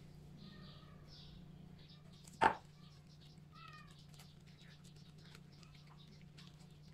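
A short, loud animal call about two and a half seconds in, then a fainter, slightly falling call about a second later. Around them are faint wet squelches and clicks from a gloved hand rubbing a red spice paste into a raw whole chicken.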